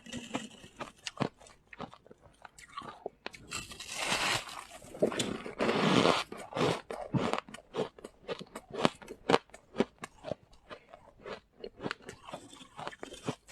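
Close-miked chewing of freezer frost: a denser crunching bite about four to six seconds in, then a run of quick, sharp crunches as the frost is chewed.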